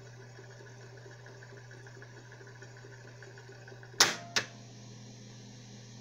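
Sharp GF-5454 boombox cassette deck running with a faint steady whir as the tape winds fast forward, then two sharp clicks of its piano-key transport buttons about four seconds in, after which only faint tape hiss remains as playback begins.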